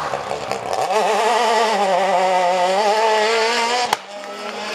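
Rally car engine accelerating hard out of a hairpin, its note climbing about a second in and holding at high revs with a fast warble. Just before the end a sharp crack cuts the note off, and the engine carries on fainter as the car drives away.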